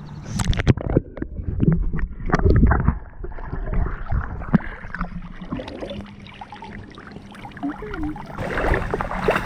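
Lake water sloshing and splashing right at the microphone as a small dog swims, with a run of louder splashes and knocks in the first few seconds.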